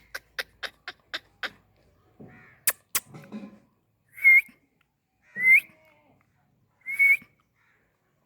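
Indian ringneck parakeet calling: a quick run of short clicky chirps, about four a second, then two sharp clicks, then three loud short whistled calls about a second apart.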